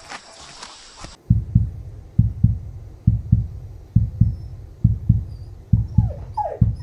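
Heartbeat sound effect: a steady run of low double thumps, about one 'ba-dum' a second, starting about a second in when the outdoor sound cuts off.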